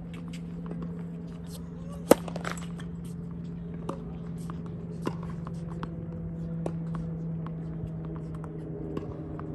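Tennis ball struck hard with a racket: one sharp, loud pop about two seconds in, followed by several fainter ball hits and bounces, over a steady low hum.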